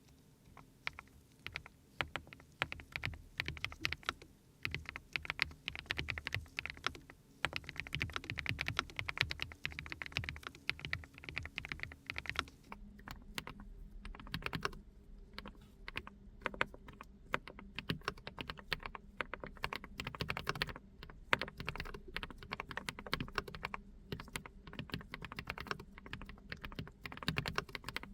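Continuous typing on a GX87 SE custom mechanical keyboard fitted with KeysU Bunny switches: a steady run of quick keystroke clacks. About halfway in, the recording changes from a dynamic microphone to a smartphone microphone, and the keystrokes take on a different, sparser tone.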